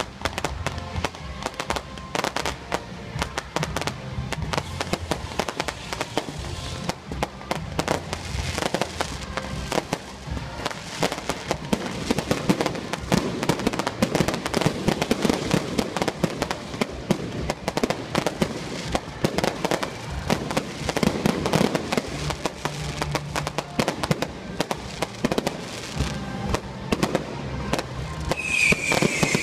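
Fireworks crackling and banging in dense, rapid succession, with music playing underneath. A loud high hiss sets in near the end.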